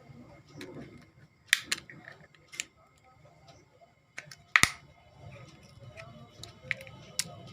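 Sharp plastic clicks and snaps as a Nokia 105 phone is pried apart to free its motherboard: about six clicks, the loudest a double snap about four and a half seconds in.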